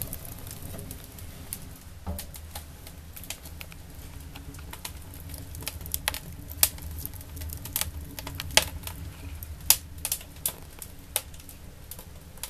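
Wood fire burning in an 8-inch batch rocket stove: a steady low rumble of the draft under irregular sharp crackles and pops from the burning logs.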